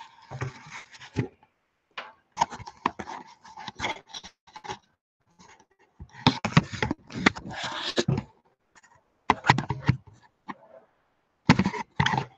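Handling noise from a webcam being picked up and repositioned over a desk: bumps, scrapes and rustling in several bursts of a second or two, with silent gaps between.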